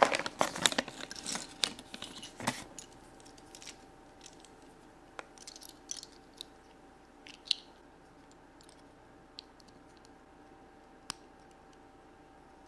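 Toy packaging being handled: crinkling and rustling for about the first three seconds, then scattered small clicks and taps of small plastic pieces.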